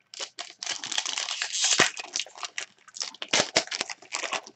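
Foil wrapper of a basketball trading-card pack crinkling and tearing as it is opened by hand. The crinkling is dense for the first two seconds, then breaks into a run of short crinkles and snaps as the cards are pulled out.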